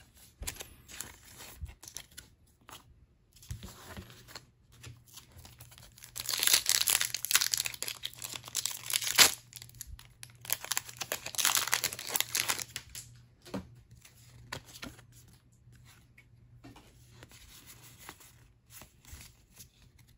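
A Pokémon card booster pack's foil wrapper is torn open and crinkled by hand, with two loud stretches of tearing about six and ten seconds in. Quieter rustling of the wrapper and the cards comes before and after.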